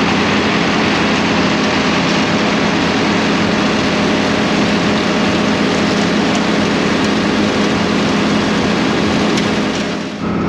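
Haybuster H-1000 "Big Bite" tub grinder grinding round hay bales, powered by a tractor running under steady load: a loud, even mix of engine hum and the mill chewing and blowing hay. The sound dips briefly near the end.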